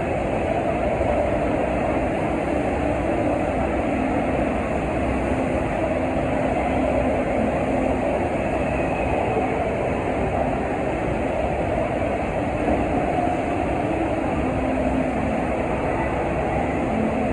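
Steady rushing of the thin sheet of water pumped up the FlowRider's wave surface, a constant roar with a faint low hum under it.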